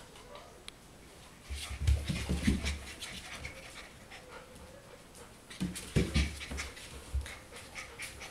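Golden retriever puppy sniffing and panting close to the microphone, with two bouts of low bumping and rustling against it, the first about a second and a half in and the second about two seconds later.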